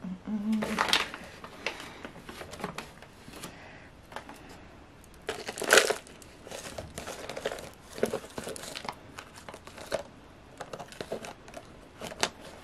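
Thin clear plastic cup being handled and gripped, crinkling and rustling irregularly as soil is added around the twigs inside, with scattered small taps. The crinkling is loudest about a second in and again near six seconds.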